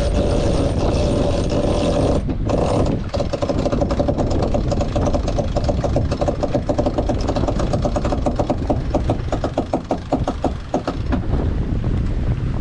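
Sailboat's jib sheet winch being worked to sheet in hard. The ratchet whirs steadily for about two seconds while the sheet is hauled in fast, stops briefly, then clicks in a long even run as the winch is cranked, under wind noise on the microphone.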